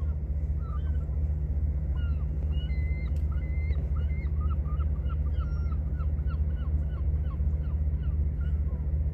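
Gulls calling over the harbour: many short, overlapping cries all the way through, above a steady low rumble.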